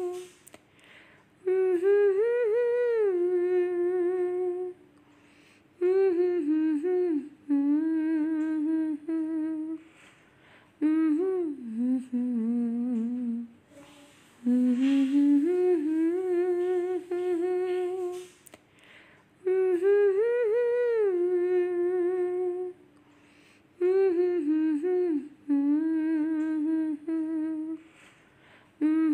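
A woman humming a slow wordless tune in phrases of three to four seconds with short pauses between, the same phrase coming back.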